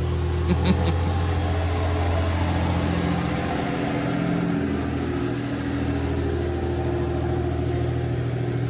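Diesel train engine running steadily with a low, even hum. A few light clicks come about half a second in.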